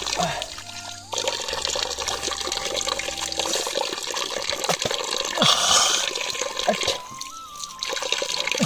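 Water running from a hillside pipe spout and splashing onto rock, a steady pour with hands washing in the stream. It gets louder for a moment in the middle and dips briefly near the end.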